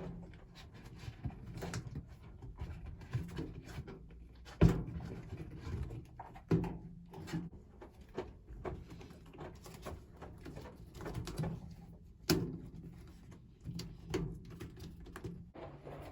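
Irregular knocks and clunks of things being handled in a small room, with three louder knocks about five, six and a half and twelve seconds in, over a faint low hum.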